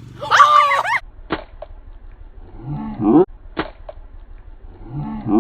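A girl's loud, surprised "Oh!", then a few sharp clicks and a short rising vocal sound.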